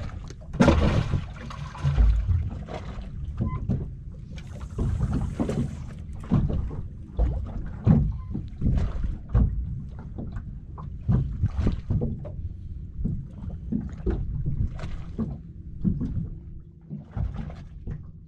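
Water lapping and slapping against the hull of a small open boat drifting on the sea, with wind rumbling on the microphone. Scattered knocks and thumps run throughout, and there is a brief hiss about four seconds in.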